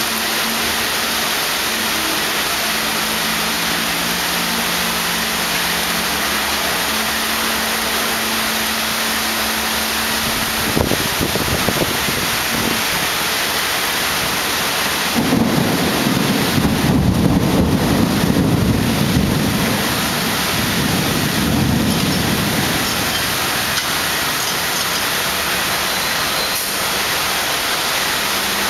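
Steady rain falling during a thunderstorm, with a long low rumble of thunder rolling for several seconds about halfway through.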